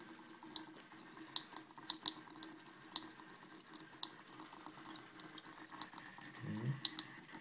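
A thin trickle of water running from a bathroom faucet into the sink, broken by quick, irregular wet clicks, about three a second, as a cat laps at the stream.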